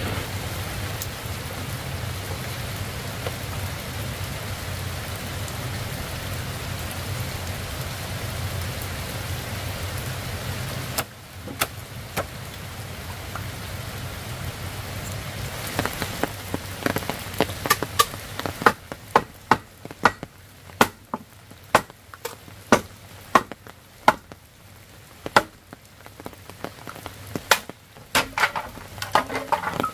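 Steady rain hiss at first. About halfway through, a run of sharp, irregular knocks begins, one or two a second, as a machete chops a bamboo pole, with the rain still falling.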